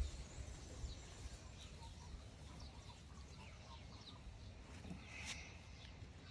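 Faint, scattered bird chirps over a steady low background rumble, with one louder chirp about five seconds in.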